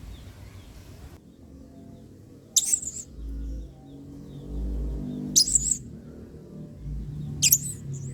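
Blue-crowned hanging parrot (serindit) giving three short, shrill, very high-pitched calls, spaced about two to three seconds apart, over a low background hum.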